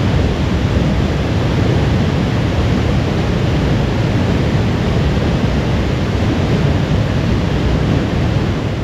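A waterfall plunging into the creek at its foot, heard close up: a steady, loud rush of falling water.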